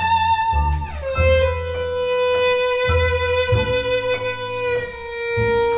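Tango quartet playing, led by a violin holding long bowed notes. About a second in the violin slides down in pitch and then holds a steady note, over low accompanying notes that come in short rhythmic blocks.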